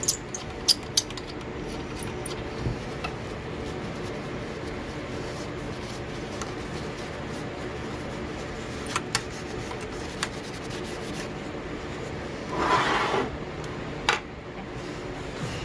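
Paper towel rubbing and wiping over the dirty panel of an EE-8 field telephone, with scattered light clicks and knocks from handling the set. One louder scrubbing rub comes near the end.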